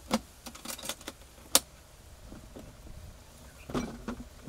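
Scattered light clicks and clatter of small items being handled by hand, with one sharper click about a second and a half in and a brief rattle near the end.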